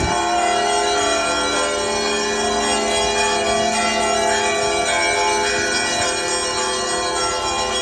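Orthodox church bells being rung together in a full peal (zvon). Many bells sound at once, their tones overlapping and hanging, with frequent light strikes of the smaller bells over a continuous ring.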